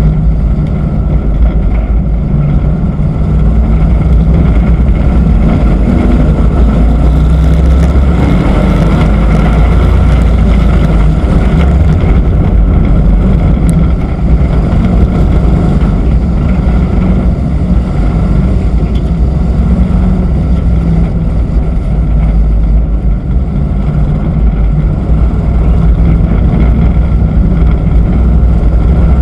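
Race truck's engine running steadily at speed, picked up loud by a camera on its hood, its pitch wavering a little through the corners.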